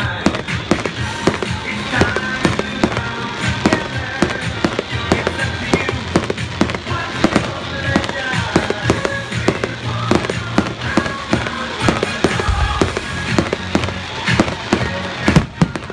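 Aerial fireworks going off in quick succession: many sharp bangs, pops and crackles, with a louder bang near the end. Music plays underneath.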